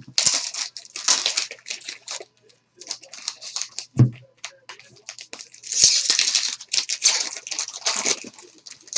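Foil trading-card pack wrapper being torn open and crumpled by hand: crinkling bursts in the first two seconds and again about six to eight seconds in, with a short thump about four seconds in.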